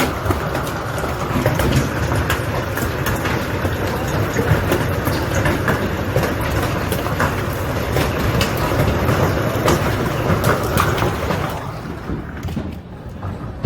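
Giant hailstorm: a dense, loud roar of hail pelting down, with many sharp cracks of large hailstones striking hard surfaces. It eases somewhat near the end.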